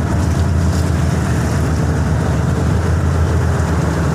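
Steady low drone of a ship's engine and machinery, an even hum with a noisy wash over it.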